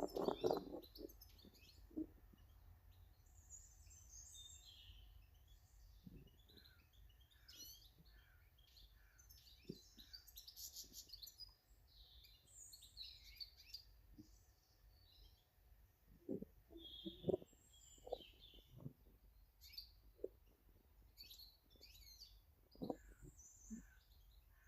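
Small garden birds chirping, faint short high calls scattered throughout, with a few soft knocks in the second half.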